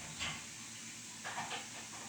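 A few short, light clatters or knocks over a steady background hiss.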